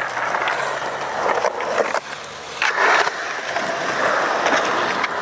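Skateboard wheels rolling over concrete in a continuous rush, with a brief dip and then a louder scraping surge about two and a half seconds in.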